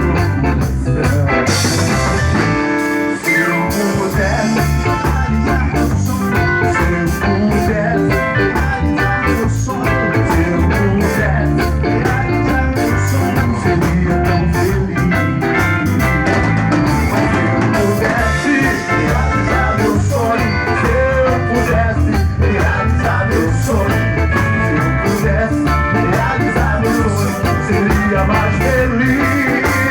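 Live band playing a mostly instrumental passage of an MPB song, guitar to the fore over a steady beat.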